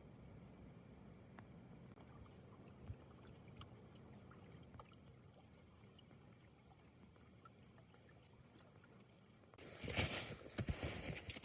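Faint, steady low rumble of wind for most of the stretch; near the end loud, irregular crunching steps in snow begin.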